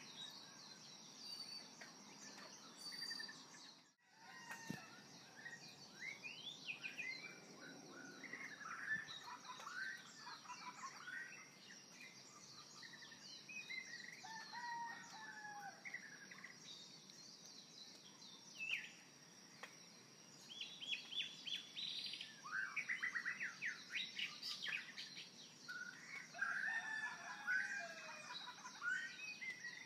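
Birds chirping and calling in many short, quick notes over a steady high hiss, cutting out briefly about four seconds in.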